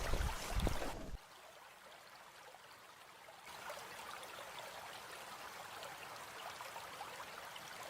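Waterfall water rushing: a steady, even rush, with a louder low rumble for about the first second before it drops back, then growing a little louder about three and a half seconds in.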